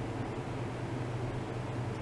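Steady low hum with an even hiss behind it, from running lab equipment.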